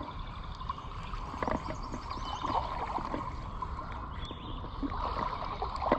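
Creek water running and gurgling steadily, with a low rumble of wind on the microphone.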